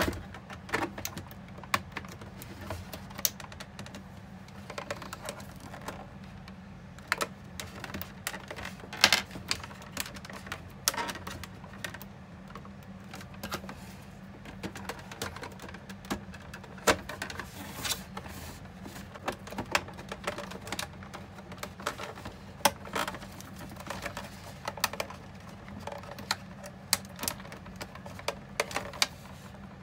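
Irregular clicks and taps of hands and tools working on a dehumidifier's plastic casing and parts as it is taken apart, over a low steady hum.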